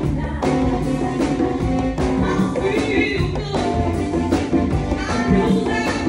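Live band music with a conga drum struck by hand up close over a drum kit, with singing.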